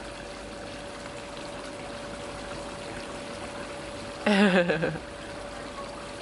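A short voice sound with a wavering pitch, about four seconds in and lasting about half a second. Under it runs a steady hiss with a faint steady hum.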